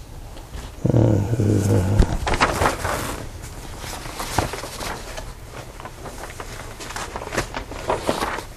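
Sheets of paper being handled and leafed through, with rustles and crackles coming and going. About a second in there is a brief low hum from a man's voice.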